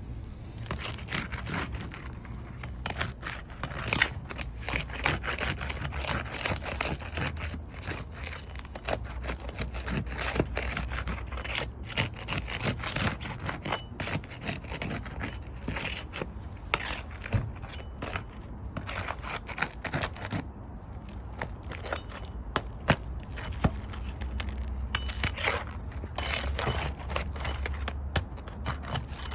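Asphalt shingles being worked loose with hand tools: irregular scraping, prying and sharp clicks as nails are pulled and the shingles crack. The uploader puts the cracking down to shingles too brittle to repair.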